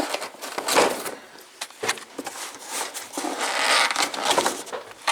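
Food packaging being handled: rustling, crinkling and scraping, with a few light knocks, and a longer stretch of rustling about three seconds in.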